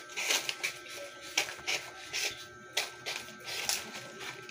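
Nipa palm leaves rustling and bamboo strips clicking as they are handled during the making of nipa thatch shingles, in irregular snaps and rustles, with faint steady tones behind.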